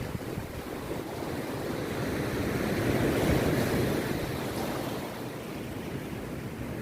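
Rough sea surf crashing and washing in, a steady rush that swells to its loudest about three seconds in and then eases back.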